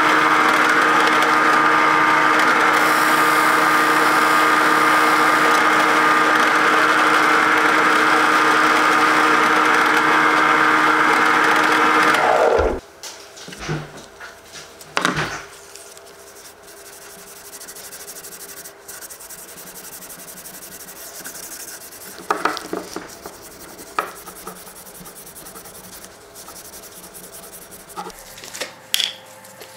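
Drill press spinning a buffing wheel while the knife's metal guard is polished against it: a loud, steady motor sound with a high whine, which cuts off about halfway with a brief drop in pitch. After that come a few light knocks and soft rubbing as a cloth wipes the knife on a wooden bench.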